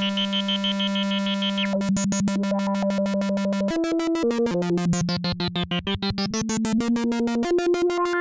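Moog Werkstatt-01 analog synthesizer playing a line of single notes, one at a time. The tone pulses rapidly as the LFO modulates the filter. About midway the filter closes down and reopens, so the sound briefly turns duller and quieter.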